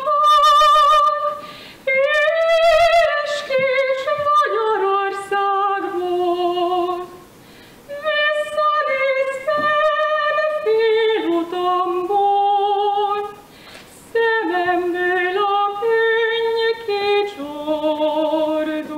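A woman singing a Hungarian folk song solo and unaccompanied, in four phrases with short breaks between them, the long notes held with a slight vibrato.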